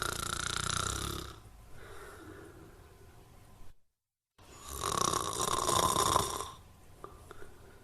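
Snoring: two long loud snores, each trailing off into a quieter breath, with a moment of dead silence between them about halfway through.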